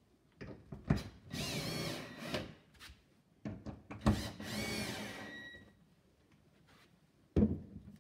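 Power drill driving screws into a wooden wall to fix a wall bracket, in two bursts of about a second each, the motor's whine rising and falling in pitch. Knocks come between and after the bursts, with a sharp one near the end.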